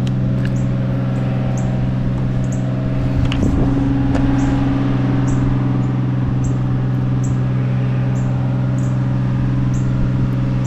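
A steady mechanical hum from a running motor, with a short high chirp repeating about once a second over it.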